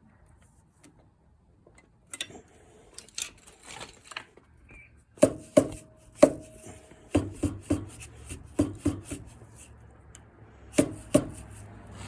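Metal tools tapping and clinking on metal: light clicks at first, then about a dozen sharp strikes in irregular clusters from about five seconds in, several leaving a brief ringing tone.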